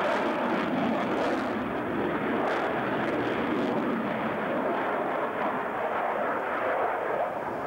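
Fighter jet flying a tight turn overhead; its engine noise is a steady, even rush that holds level without sudden changes.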